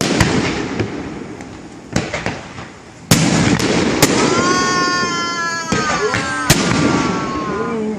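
Fireworks display: aerial shells going off in a series of sharp bangs, thickening after a few seconds into continuous crackle and rumble. A long high whistle slowly falls in pitch through the middle.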